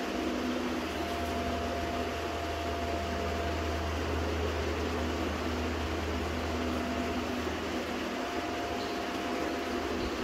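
Steady mechanical hum from a running household machine: a constant low drone with a faint held whine over an even hiss.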